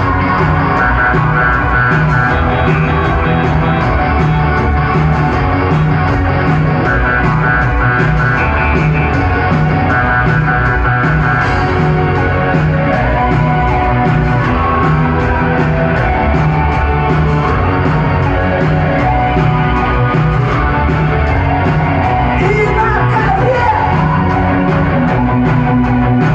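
A live rock band playing loudly in a concert hall, with a singing voice over the band, heard from among the audience.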